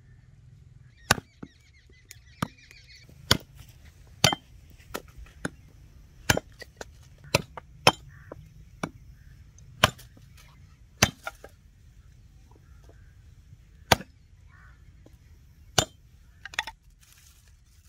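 A hatchet chopping dry sticks against a block, a sharp chop roughly once a second with a short pause about two-thirds of the way through.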